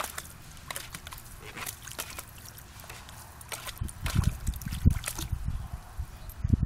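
German shepherd puppy splashing in a plastic kiddie pool, dipping its muzzle and pawing at the water in irregular sloshes and splashes. The splashing gets heavier about halfway in, with several dull thumps.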